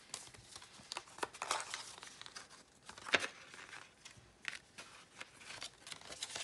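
A paper CD sleeve crinkling and rustling in the hands as photo cards and stickers are slid out of it, with small clicks of card on card. The loudest rustle comes about three seconds in.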